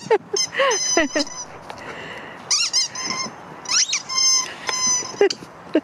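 A husky biting a squeaky dog toy, making it squeak again and again in quick bursts. Some squeaks are held on one pitch and some slide up and down.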